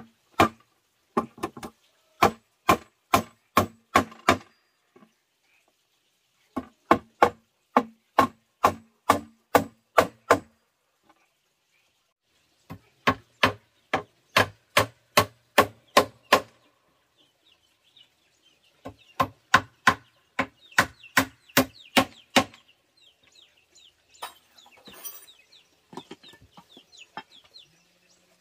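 Hammer striking wood in four runs of about ten even blows, roughly two and a half a second, with short pauses between runs. Faint scraping follows near the end.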